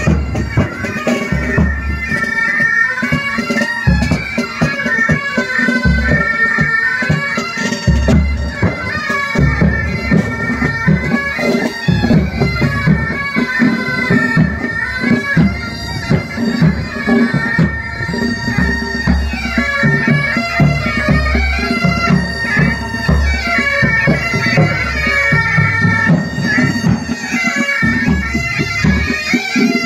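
Military pipe band playing a march on Great Highland bagpipes, the pipes' melody over their steady drone, with drums beating time.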